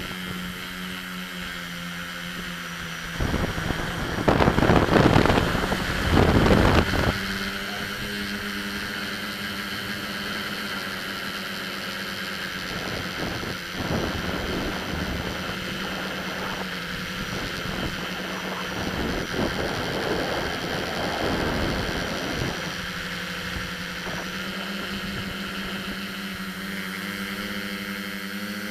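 Multicopter's electric motors and propellers humming steadily as heard from its onboard camera, with loud wind rushing over the microphone about three to seven seconds in during fast flight. The hum's pitch rises slightly near the end as the throttle changes.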